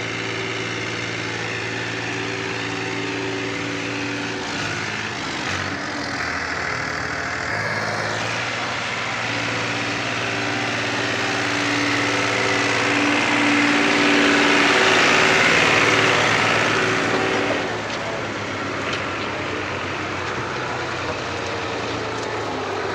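Farm tractor's diesel engine running steadily as it pulls a trolley loaded with sugarcane, its note shifting a few times. From about halfway through a louder rushing noise swells for several seconds, then drops away.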